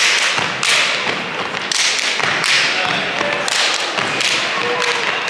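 A step team stepping on a gym's hardwood floor: sharp stomps and claps struck in unison about once a second, each ringing briefly in the gym's echo.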